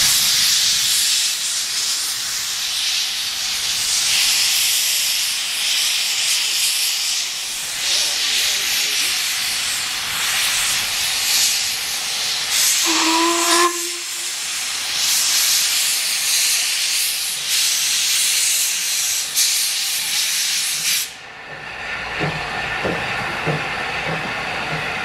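Andrew Barclay 0-4-0 saddle tank steam locomotive moving off with its cylinder drain cocks open: a loud hiss of steam, broken by a short whistle toot about 13 seconds in. The hiss cuts off suddenly near the end.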